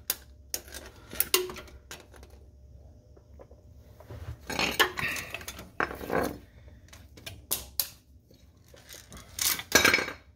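An automatic transmission shift cable being pulled up through the truck's floor by hand: irregular bursts of scraping, rustling and clattering as the cable and its grommet are worked free.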